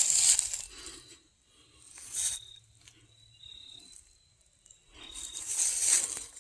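Footsteps crunching and brushing through dry leaves and undergrowth in woods, in three uneven bursts with pauses between them.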